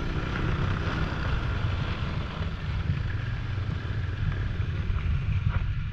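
Snowmobile running steadily at speed, its engine and track a low rumble, with wind buffeting the action camera's microphone.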